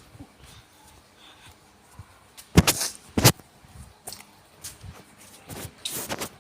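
Two sharp impacts about three quarters of a second apart, the loudest sounds here, with a few fainter knocks later on.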